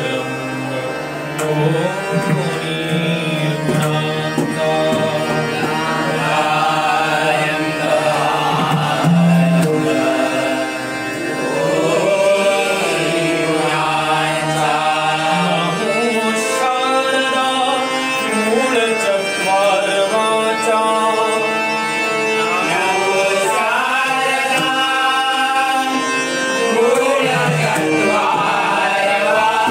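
Malvani bhajan: a devotional song sung by a voice over hand-drum and instrumental accompaniment, in a continuous melodic line.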